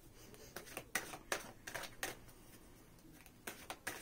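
A deck of cards being shuffled by hand, the cards tapping and sliding against each other in soft, irregular clicks, several a second, with a short lull past the middle.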